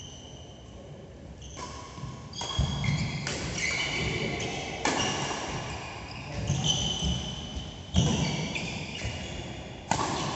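Badminton rally: rackets striking a shuttlecock, a sharp crack every second or two, with high squeaks of shoes on the court mat and footfalls, echoing in a large hall.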